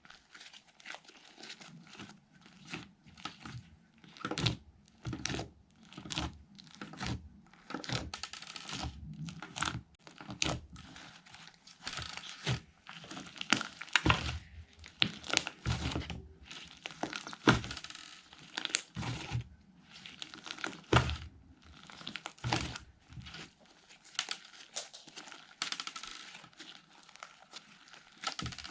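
Fluffy slime being squished and stretched by hand, giving irregular crackles and pops of uneven strength.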